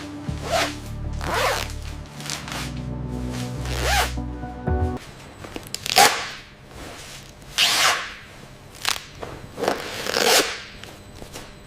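Background music, with a series of brief swishing sounds at irregular intervals; the steady low notes drop away about five seconds in.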